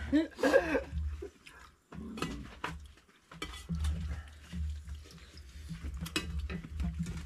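Spoons and a serving ladle clinking and scraping against metal plates, bowls and a pot during a shared meal, in scattered short clicks.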